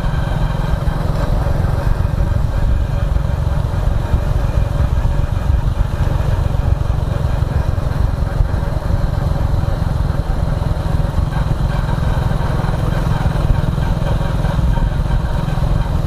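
Motorcycle engine running steadily while being ridden, a constant low drone with no change in pace.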